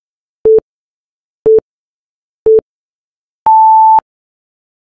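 Electronic countdown-timer beeps: three short beeps a second apart at one pitch, then a longer, higher beep about three and a half seconds in as the timer reaches zero, signalling time up.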